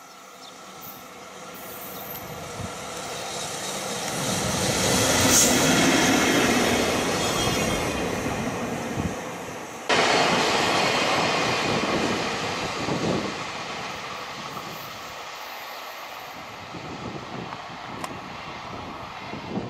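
An EF65 electric locomotive hauling a freight train approaches and passes. The wheel and rail noise grows steadily louder to a peak, then eases off. About halfway through it jumps suddenly to loud train noise that slowly fades.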